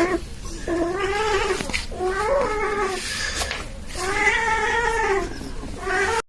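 A cat yowling in long, drawn-out calls, about four of them, each rising and then falling in pitch, with a short one that is cut off abruptly near the end.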